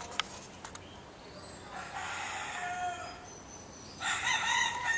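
A rooster crowing twice: one crow lasting about a second and a half starting near the two-second mark, and a second crow beginning near the end.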